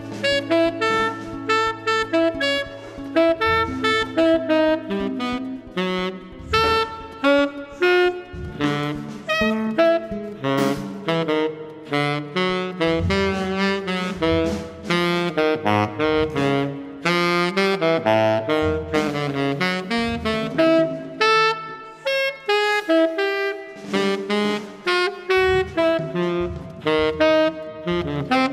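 Live free-improvised jazz: a saxophone plays quick, jumping runs of short notes over the rest of the band.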